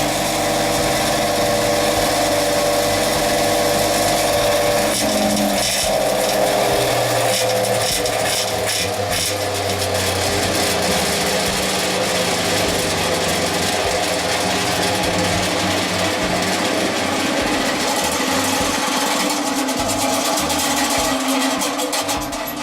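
All-stainless Tokuju circular vibrating sieve running, its vibrating drive giving a steady loud mechanical hum and buzz. The pitch of the hum shifts about five seconds in, then holds steady.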